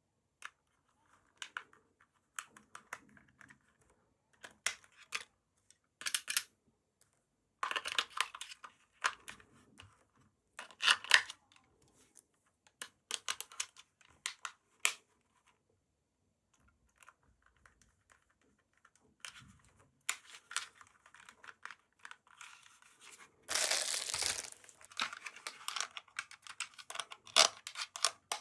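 Toy packaging being opened and handled: plastic crinkling and tearing in short spells, with scattered clicks and taps, and a longer spell of tearing and crinkling near the end.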